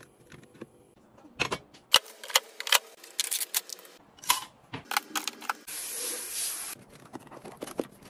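Household items being handled: a quick run of sharp plastic clicks, knocks and clatter, with a steady hiss lasting about a second a little past the middle.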